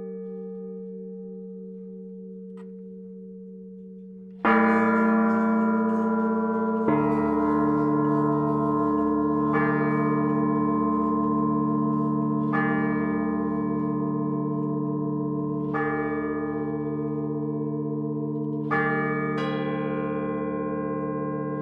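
Church bells rung one stroke at a time in a slow peal, each stroke ringing on and overlapping the last. A ring dies away for about four seconds, then a loud stroke comes, followed by five more roughly every three seconds, a deeper bell joining at the second.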